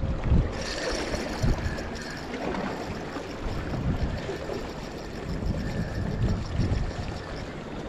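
Wind rumbling on the microphone, with small waves lapping and gurgling against breakwater rocks.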